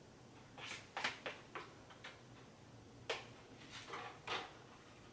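Faint, scattered clicks and knocks of kitchenware being handled at a stove: a small cluster about a second in, a sharp single click near three seconds, and another cluster near four seconds.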